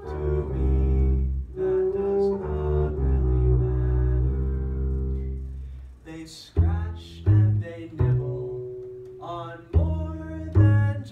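Double bass playing: long, held bowed notes for about the first five seconds, then a string of short, sharply attacked separate notes.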